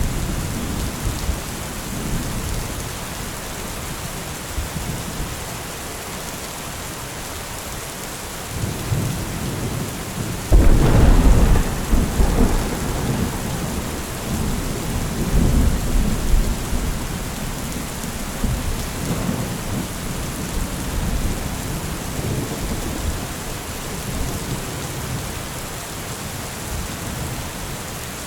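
Steady rain falling, with rolls of thunder: a sharp crack about ten seconds in that rumbles on for several seconds, and lighter rumbles before and after it.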